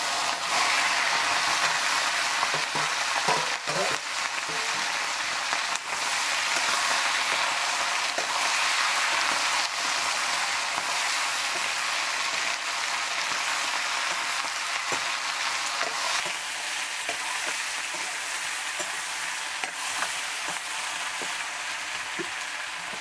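Food frying in hot oil in a cooking pan: a loud, steady sizzle with scattered clicks and scrapes of stirring. The sizzle eases a little about two-thirds of the way through.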